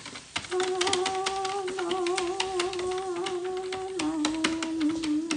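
Keys of a toy cash register being pressed in quick succession, many sharp clicks a second as items are rung up. Over the clicks a single held note sounds, dropping a little in pitch near the end.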